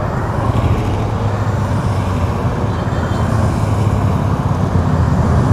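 A stream of motorcycles riding past, their engines making a steady low drone that grows gradually louder as more bikes come close.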